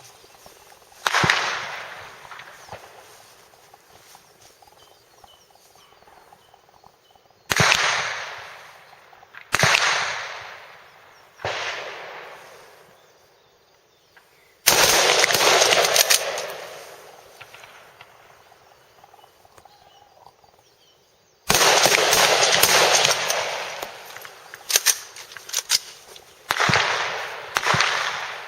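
Rifle shots from several service rifles on the firing line, each crack followed by a long rolling echo. Single shots come a few seconds apart at first, then twice a run of close, overlapping shots fires at once, and separate shots follow near the end.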